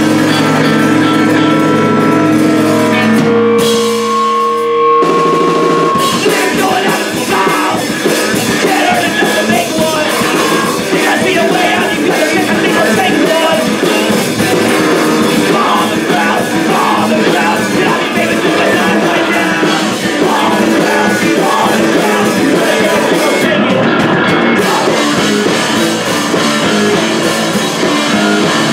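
Live punk rock band playing loud: electric guitars, bass and drum kit. Held guitar notes ring for the first few seconds, then the full band comes in about six seconds in and plays on densely.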